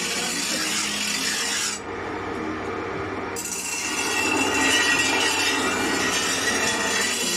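Steady rasping of a tool working metal during the repair of a fodder cutting machine, with no clear stroke rhythm.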